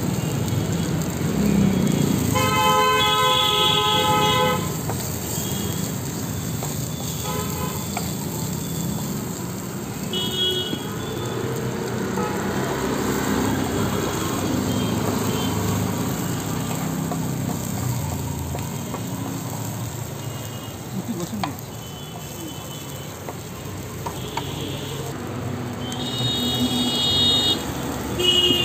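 Busy road traffic with vehicle horns honking several times over a steady traffic hum. The longest blast lasts about two seconds, a few seconds in, and another sounds near the end.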